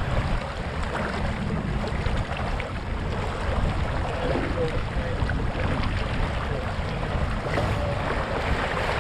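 Wind buffeting the microphone of a small sailboat under sail, over the steady rush and slap of water along the hull.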